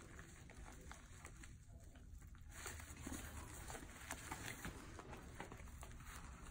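Near silence: a faint low room hum with soft, scattered rustles and clicks from gloved hands and gauze working at the wound.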